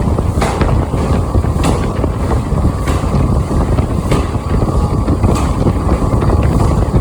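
Forging-shop machinery running with a loud, steady rumble, and a sharp metallic clank about every second and a bit.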